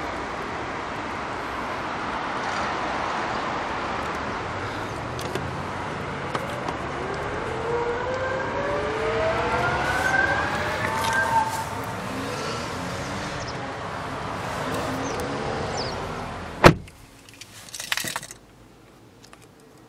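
2014 Hyundai Genesis power passenger seat motors whining under a steady hiss, the whine rising in pitch through the middle. A sharp click about 17 seconds in, after which it goes much quieter apart from a few small clicks.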